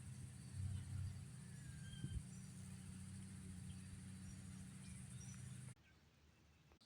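Faint outdoor ambience: a steady low hum with a few faint bird chirps over a high hiss. The hum cuts off abruptly near the end.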